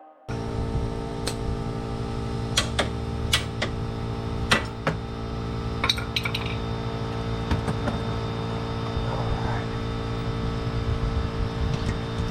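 A steady electrical or mechanical hum, starting suddenly just after the start, with scattered sharp metallic clicks and clinks of tools and parts being handled.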